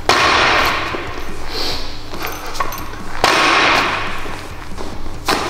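Squat cleans with a barbell loaded with bumper plates. There is a sharp knock of the bar at the start and again about three seconds later, each followed by about a second of rattle and effort noise, and another knock near the end.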